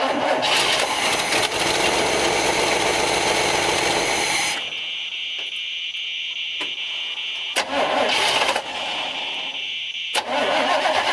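The 1965 Chevy C10's engine is cranked on the starter without catching: a long crank of about four and a half seconds, a short one about eight seconds in, and another starting near the end. It turns over but will not fire because its fuel filter has run dry.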